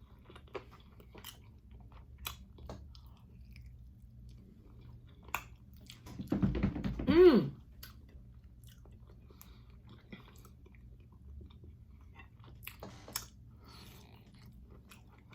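Close-miked chewing and biting of chicken wings: wet mouth clicks and small crunches scattered through, with a short voiced 'ooh' of enjoyment about seven seconds in.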